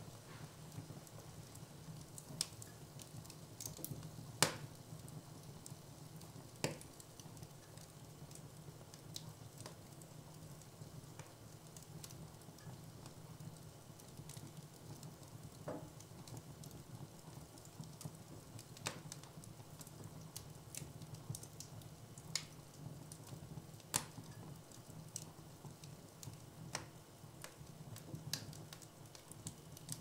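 Wood fire in a fireplace crackling, with irregular sharp pops and cracks from the burning logs; the loudest crack comes about four and a half seconds in. A steady low hum runs underneath.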